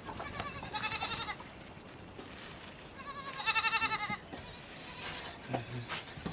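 A goat bleating twice, two short, quavering calls, the second louder.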